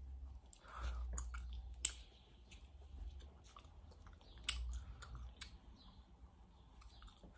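A person biting and chewing soft gummy candies, with wet mouth clicks and smacks; the sharpest clicks come about two seconds in and about four and a half seconds in.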